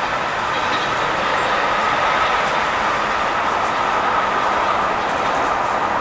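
Steady mechanical drone with a constant mid-pitched hum, unchanging throughout.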